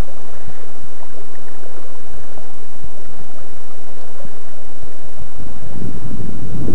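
Loud, rumbling wind buffeting a small camera microphone over the rush of a river, swelling strongly about five and a half seconds in.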